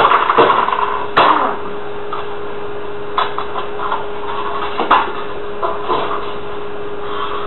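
Scattered knocks and thumps, five or so, over a steady hum. The first, about a second in, is the loudest.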